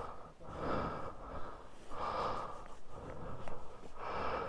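A person breathing close to the microphone: several short, noisy breaths, roughly one every second or so.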